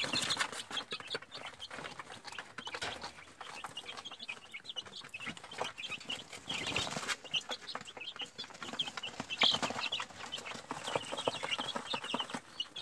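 A flock of young chicks peeping continuously: many short, high chirps overlapping.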